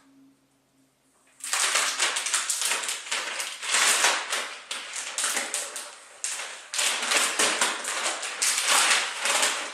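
Protective plastic covering being pulled off a new computer, crinkling and crackling densely. The crackling starts about a second and a half in, after a brief near silence.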